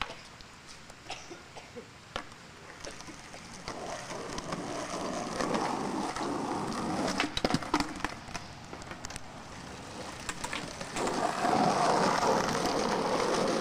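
Skateboard wheels rolling over a concrete deck, growing louder as the boards pass, with a few sharp knocks from the board about halfway through.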